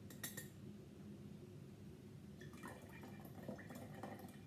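A ceramic teapot clinks briefly as it is lifted. From about halfway through, the first rinse of pu-erh tea trickles out of the spout through a metal strainer into a jar, pouring off the rinse water.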